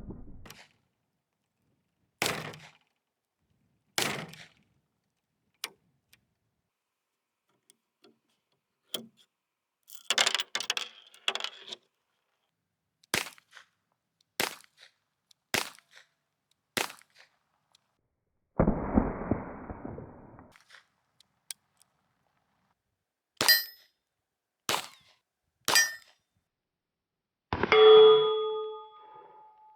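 Restored Smith & Wesson safety hammerless revolver in .32 S&W Short being test-fired: one shot about 19 seconds in, amid many sharp metallic clicks and clinks, some with a short high ring. Near the end comes a loud ringing metal clang.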